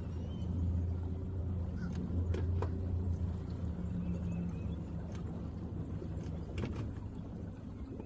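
Boat's outboard motor running steadily at low speed, a constant low hum with a few faint ticks over it.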